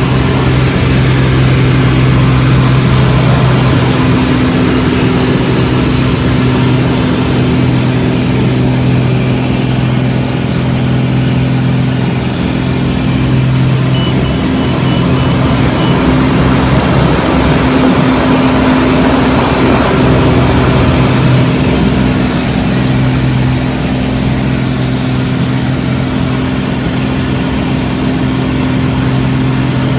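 Pitts aerobatic biplane's engine and propeller running, heard from the open cockpit with wind rushing over the microphone. The steady engine note blurs and shifts for several seconds in the middle, then settles again.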